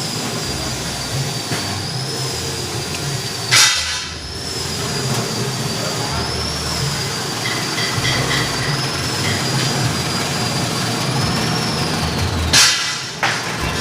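Cassava-shredding machine (mesin sawut) running with a steady high whine that wavers slightly in pitch. Two short, loud bursts come about nine seconds apart.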